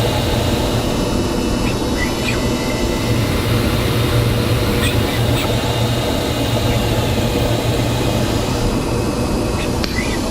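Swiss-type CNC lathe running steadily with a low hum, with a few brief high chirps about two, five and ten seconds in.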